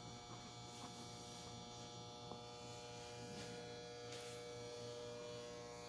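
Faint steady electrical hum with several steady tones, and a few faint ticks.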